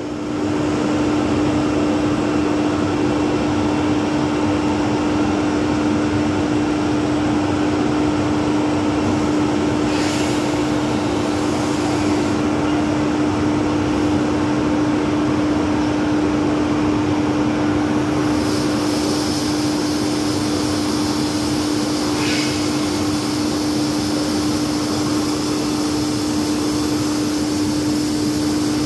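Battenfeld plastic pipe extrusion line running: a loud, steady machine drone with a strong constant hum. Brief hisses come twice about ten seconds in and once more past the middle, and a higher hiss joins a little after halfway.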